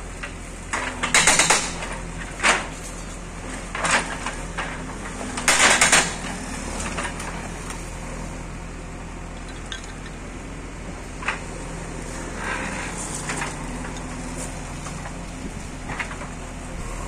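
Backhoe loader's diesel engine running steadily while its bucket tears into a building, with clattering crashes of falling brick rubble and metal. Four loud crashes come in the first six seconds, then only a few smaller knocks.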